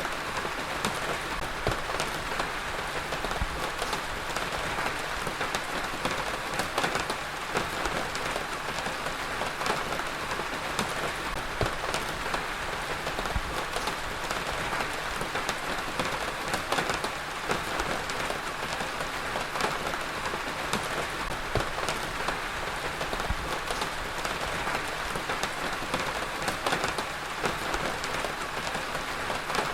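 Heavy rain falling steadily, an even hiss of rain on a surface with many individual drops ticking through it.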